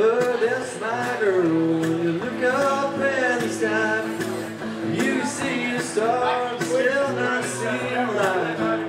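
A man singing live to his own strummed acoustic guitar.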